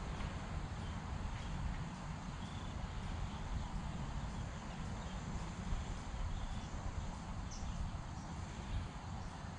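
Outdoor ambience: a low, uneven rumble of wind buffeting the microphone, with a few faint, short bird chirps now and then.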